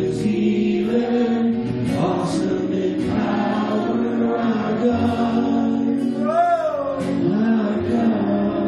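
Live church worship music: voices singing together over instrumental accompaniment, holding long notes, with one voice sliding up and back down about six seconds in.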